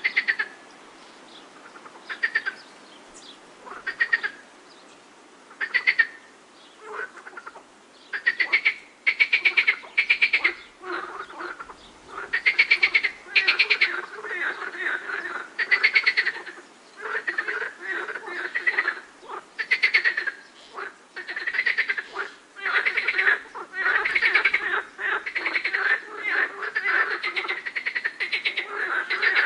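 Frogs calling in a chorus: short, rapidly pulsed croaks, a few seconds apart at first, then many overlapping calls from about eight seconds in, with lower-pitched calls underneath.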